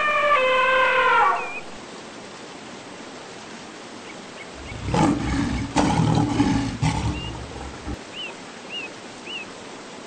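A drawn-out animal call, falling in pitch, ends about a second and a half in. A loud, deep animal roar lasts about three seconds around the middle, followed by a few short faint chirps, over a steady rush of flowing water.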